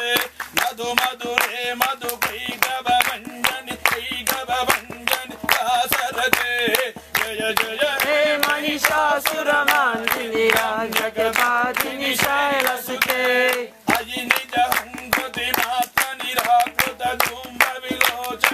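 A group of people singing a devotional chant together, with steady rhythmic hand clapping. Everything stops briefly about three-quarters of the way through, then resumes.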